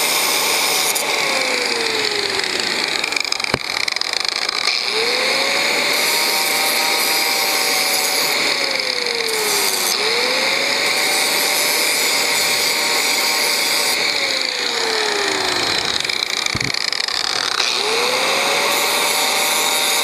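Electric angle grinder running continuously with a high whine while it grinds the head of a link pin flat on a heavy 530 steel motorcycle drive chain. Its motor pitch sags each time it is pressed into the pin and climbs back when eased off, several times over.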